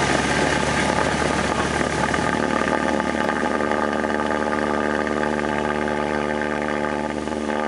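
Cessna 172's piston engine and propeller running at takeoff power during the takeoff roll, heard from inside the cabin as a steady loud drone, its engine note standing out more clearly about halfway through.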